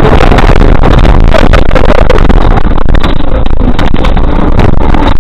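Car driving fast over a bumpy field track: a steady, loud, distorted low rumble of engine and wind, with scattered knocks and rattles as the body jolts.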